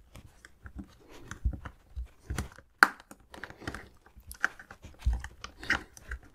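A metal spudger prying at the seam of a plastic smartwatch case: irregular clicks, scrapes and creaks of the plastic as the blade works in, with one sharp crack a little before halfway.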